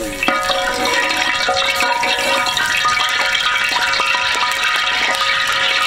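Oil sizzling and crackling as it heats in a large iron kadai over a wood fire, steady throughout, with a set of held ringing tones over the sizzle.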